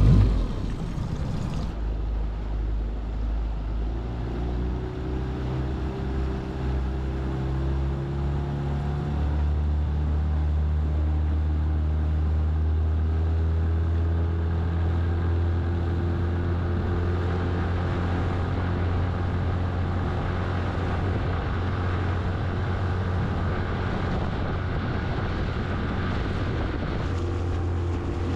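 Small Mercury tiller outboard motor running on a micro skiff under way. It rises in pitch a few seconds in as it is throttled up, then holds a steady cruising speed.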